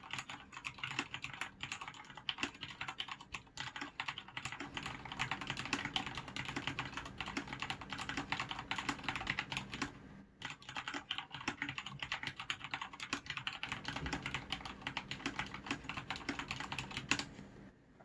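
Fast typing on a Thinkway CROAD C604 mechanical keyboard with Cherry MX Red linear switches and PBT keycaps: a dense run of key clacks, with a brief pause about ten seconds in, and the typing stops about a second before the end.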